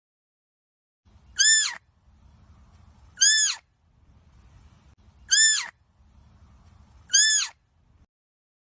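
An animal's high-pitched call, repeated four times about two seconds apart; each call is a short squeal that rises and falls in pitch, and all four are alike.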